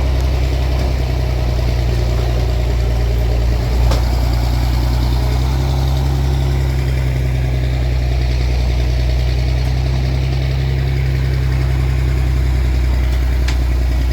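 An engine idling steadily with a deep, even hum, with a brief knock about four seconds in.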